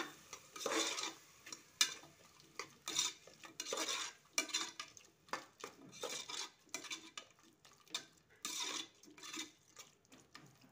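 Spatula stirring diced vegetables and curd in a metal pressure cooker: irregular scraping strokes against the pot, roughly one a second.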